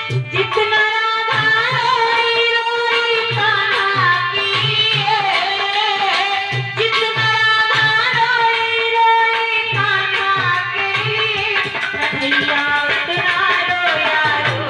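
Hindi devotional bhajan music: a wavering melodic lead over a steady tabla-style hand-drum beat.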